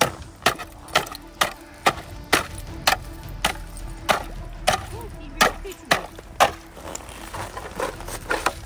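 A metal shovel blade chopping down into the ice of a water hole in a frozen river, breaking up the ice crust that has formed over the opening. It gives sharp strikes at about two a second.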